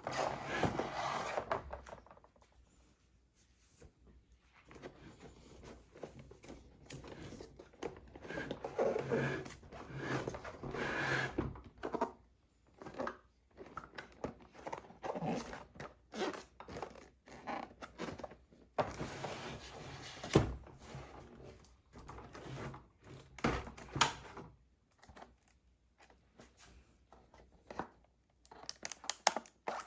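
Plastic toy pieces and packaging being handled: scattered clicks, knocks and rustling, with one sharp click about twenty seconds in.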